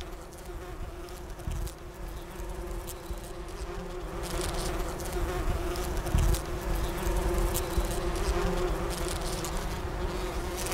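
Bees buzzing in a steady, unbroken hum, with a low rumble underneath.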